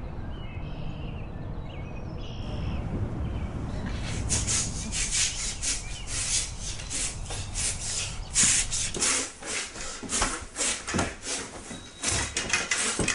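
Low wind rumble on the microphone, then from about four seconds in a rapid run of scratchy whooshing strokes, several a second, from a long pole being swung and swished about.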